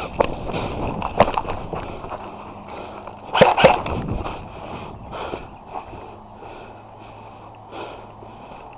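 Breathing-like puffs and rustling from a player moving with his gear, with scattered clicks and a louder pair of sharp knocks about three and a half seconds in; quieter in the second half.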